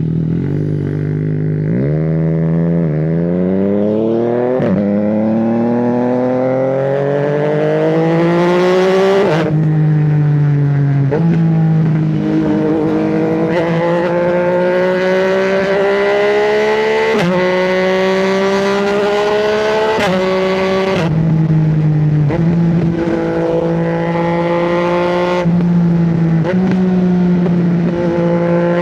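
Yamaha MT-09's inline three-cylinder engine accelerating hard through the gears, the quickshifter making clutchless upshifts. Each gear ends in a rising whine that drops abruptly at the shift, over and over, with short quick shifts early on and longer pulls later.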